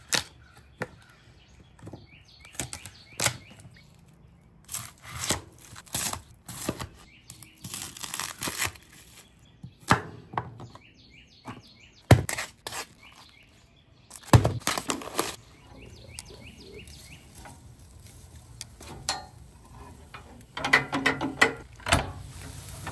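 Kitchen knife rough-chopping celery, onion and carrots on a wooden butcher-block board: irregular sharp knife strikes against the wood, with a couple of heavier knocks around the middle. Small birds chirp in the background.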